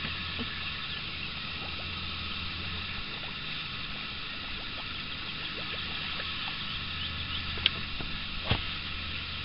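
Calm outdoor lake background: a steady high chirring chorus with a low hum beneath that fades out for a few seconds mid-way and returns. Near the end come a few sharp clicks and a knock, the loudest about eight and a half seconds in, as the rod is swept up on a strike.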